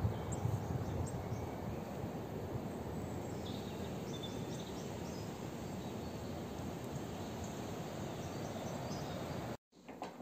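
Steady outdoor background noise with a few faint high chirps partway through; it cuts off suddenly about half a second before the end.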